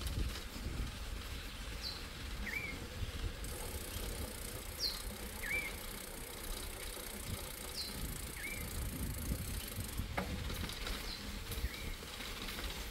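Bicycle rolling along a dirt track, a steady low rumble of tyres and wind on the microphone, with one sharp click about ten seconds in. Over it a bird repeats a two-note call about every three seconds: a high falling note followed by a lower, hooked whistle.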